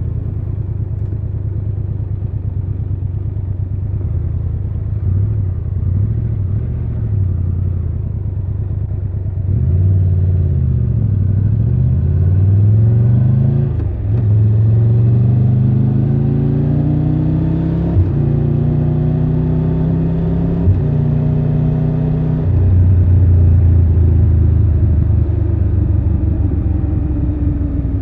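Triumph Tiger 1200 Rally Pro's three-cylinder engine running at low revs, then pulling away with the pitch climbing in steps through a few gear changes, before dropping back to a low, steady run near the end.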